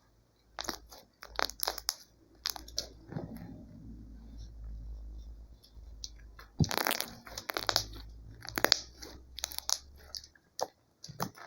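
Homemade slime being squeezed and worked by hand, giving an irregular run of sharp crackles and pops, thickest about two-thirds of the way through.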